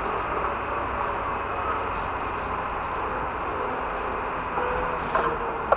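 Off-road vehicle engine running steadily at low revs, heard from inside the cabin, with a couple of light knocks near the end.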